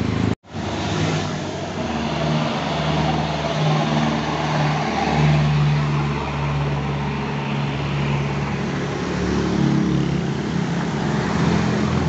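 Road traffic passing close by, with a truck's engine running as a steady low hum alongside. The sound cuts out briefly just after the start.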